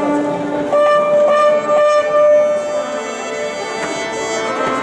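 Orchestral bowed strings with woodwinds sounding long held notes, several pitches at once.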